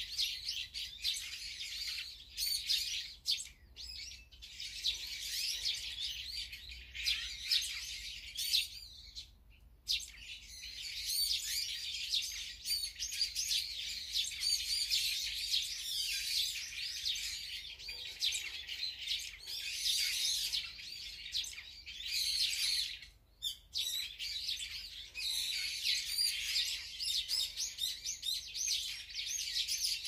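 Many small birds chirping and twittering together, the calls overlapping almost without a break, with short lulls about ten seconds in and again a little after twenty seconds.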